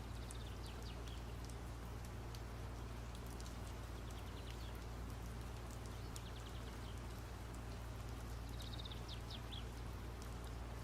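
Faint small-bird chirping, heard as four short runs of high, falling notes, over a steady low hum.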